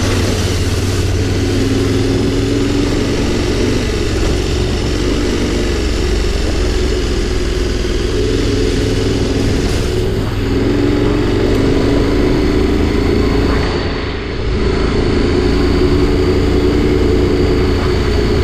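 Adventure motorcycle engine running steadily as the bike rides along a dirt track. It eases off briefly about three-quarters of the way through, then picks up again.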